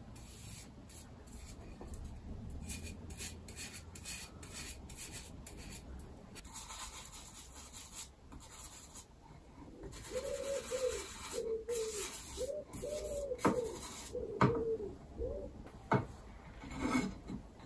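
A small bristle brush scrubbing yacht varnish onto wood, a soft scratchy rubbing. From about ten seconds in, a string of short wavering squeaky tones sits over it, with a few sharp taps.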